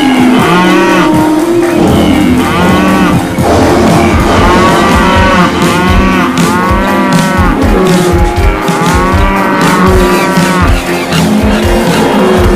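Cow mooing sound effects: about five drawn-out moos, each rising and then falling in pitch, over background music with short low thuds.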